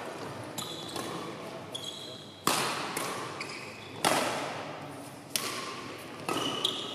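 Badminton rally: rackets striking the shuttlecock with sharp cracks that echo in a large hall, six hits in all, the loudest about two and a half and four seconds in.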